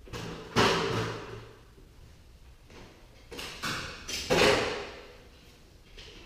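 A fiberglass stepladder being set down and opened, clattering loudly twice with a few smaller knocks between, its metal spreaders and feet rattling.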